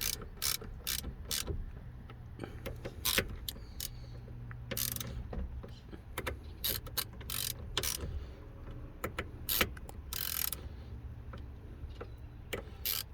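Ratchet wrench clicking in short irregular runs as the 8 mm bolts of a steering-wheel hub adapter are tightened down, with a low steady hum underneath.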